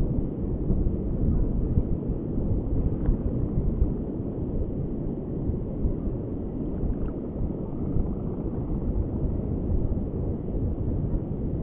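Wind buffeting the microphone: a steady low rumble that rises and falls, with no distinct events.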